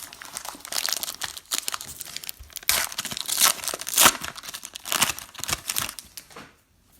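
Wrapper of a 2019 Prizm football card pack being torn open and crinkled, a dense crackling that dies away near the end.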